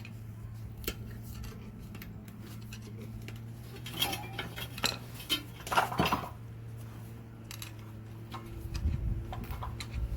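Metal tools and parts clinking and knocking against each other, with a few louder clanks between about four and six seconds in, over a steady low hum.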